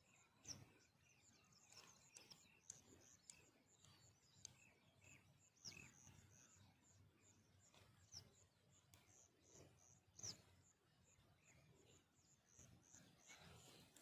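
Near silence with faint birdsong: a string of short, high chirps and a few brief falling whistled calls, about four of them spread through.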